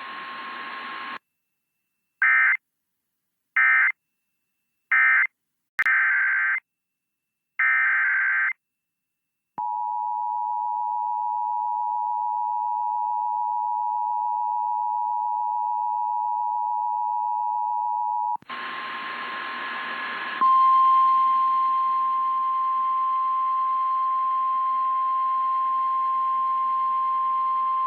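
Emergency Alert System signalling. First three short bursts of SAME digital data, the end-of-message code of the previous alert, then two longer data bursts. Next the two-note EAS attention signal holds steady for about nine seconds, and after a burst of radio static a single steady NOAA Weather Radio warning alarm tone sounds until near the end.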